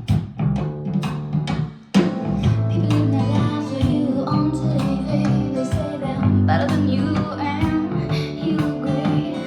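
Music played back through ELAC Debut 3.0 DB63 speakers: a song with guitar and a beat, with a strong hit about two seconds in.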